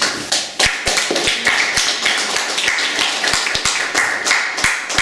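Audience applauding, with many individual hand claps distinct from one another.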